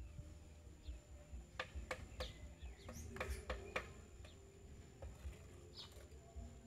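Birds chirping: a quick run of short, sharp chirps in the middle, with a few higher falling calls later, over a low rumble.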